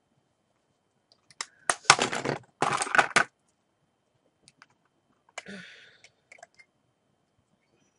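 Hard plastic makeup containers and tools being rummaged through and set down on a table: a dense clatter of clicks for about two seconds, then a shorter, quieter rattle a couple of seconds later.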